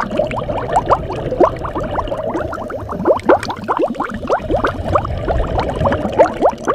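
Exhaled air bubbles from scuba regulators heard underwater: a dense, steady bubbling made of many quick rising chirps and gurgles.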